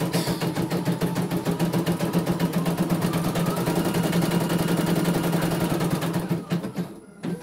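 CNY E900 computerized embroidery machine stitching, its needle bar running in rapid, even strokes over a steady motor hum. It stops for about a second near the end.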